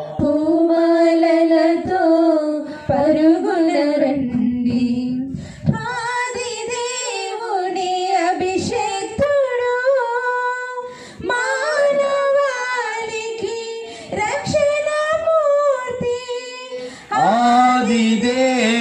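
A woman singing a Telugu Catholic hymn, the Mass's entrance song, in long held and gliding notes.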